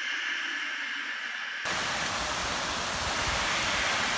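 Steady hiss for the first second and a half, then an abrupt cut to the heavy rain and wind of a hurricane: a dense, even rushing hiss with some low buffeting.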